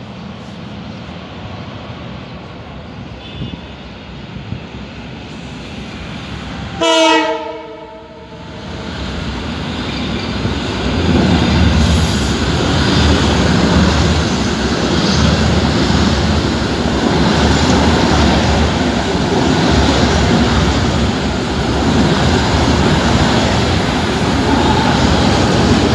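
Train horn sounds once, briefly, about seven seconds in, as the Abu Qir commuter train approaches. From about ten seconds in the train passes close by on the next track, its coaches rumbling and clattering loudly and steadily over the rails.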